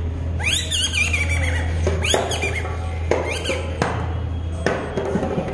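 Squeaky, chirping puppet voice from a kathputli puppeteer's boli, a reed whistle held in the mouth: several high swoops that rise and fall, about one a second, over a steady low hum.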